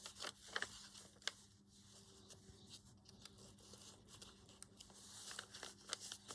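Faint rustling of paper being handled, with a few light taps and clicks.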